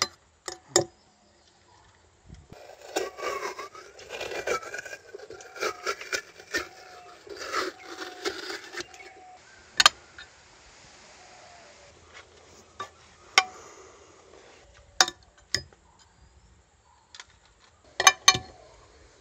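Stainless-steel melon baller scooping watermelon flesh in a glass dish: sharp metal-on-glass clinks, about ten in all with a quick pair near the end, and a busy stretch of wet scraping and rubbing in the middle.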